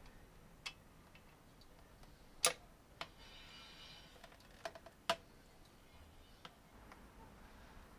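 A few sharp metallic clicks and taps of hand tools and parts as a motorcycle's horn is unbolted and moved behind the headlight. There are two louder knocks, about two and a half and five seconds in, and a brief faint rattle between them.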